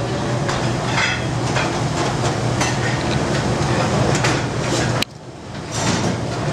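Busy restaurant kitchen at the gas range: a steady low rumble with metal pans and utensils clattering and knocking now and then. The sound drops out abruptly about five seconds in, then quickly builds back.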